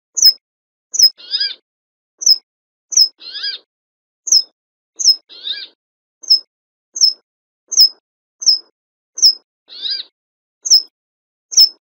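Brambling calling: short, sharp, high notes falling in pitch, about one every 0.7 seconds, with a lower, longer call breaking in four times.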